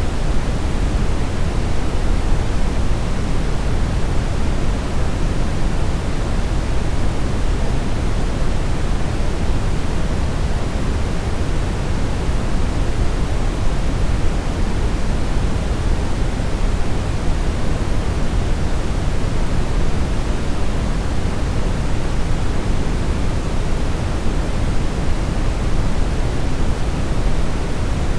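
Brown noise: a steady, even rushing hiss, deepest and strongest in the low end, without any change.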